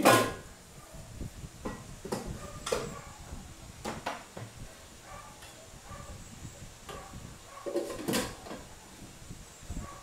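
Household clatter of objects being handled: a sharp knock right at the start, then scattered lighter knocks and clicks, with a louder clatter about eight seconds in.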